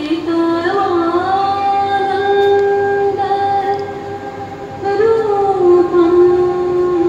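A female voice singing a slow melody of long held notes that slide up and down between pitches.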